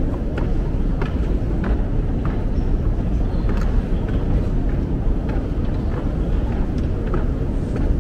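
Footsteps at an even walking pace, a little under two steps a second, over a steady low rumble.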